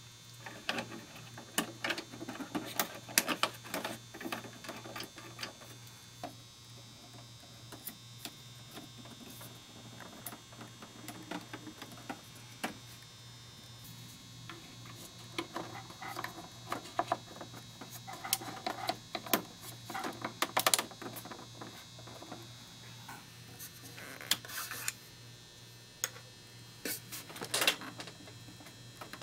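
Small plastic parts of a 1/6-scale Hot Toys Tumbler model clicking and knocking as the air flaps are handled and fitted into place, in irregular clusters, over a steady low hum.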